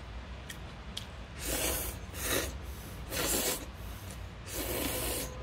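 A person slurping buckwheat noodles (memil-guksu), four long hissing slurps about a second apart.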